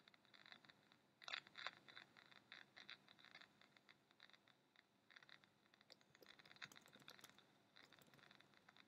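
Near silence, with faint irregular crackles and scratches and a faint steady high tone.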